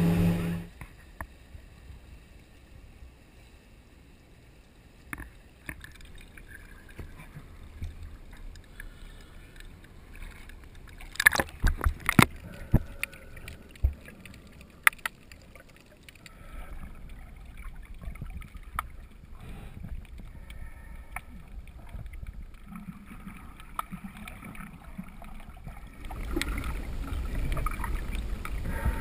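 Underwater sound heard through a GoPro's waterproof housing: a faint low hiss of water with scattered clicks and a brief cluster of sharp knocks about a third of the way in. Near the end a louder low rumbling of moving water sets in.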